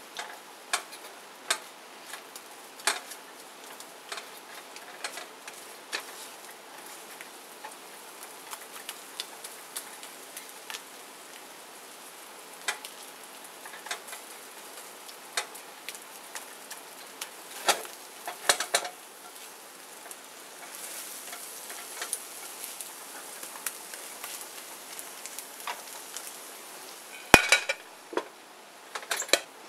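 Silicone spatula stirring and tapping on a nonstick frying pan as eggs cook, with a faint sizzle underneath. Near the end a ceramic plate clatters down onto the pan.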